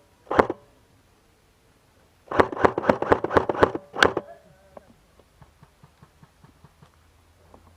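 Running footsteps: a quick run of about a dozen heavy steps in the middle, then fainter steps at a slower, even pace.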